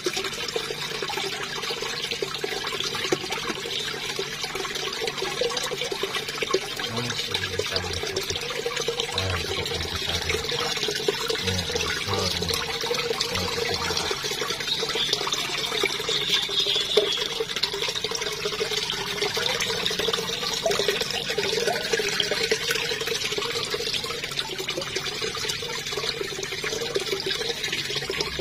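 Water pouring steadily into a koi pond from an inflow over the stone edge, a constant splashing.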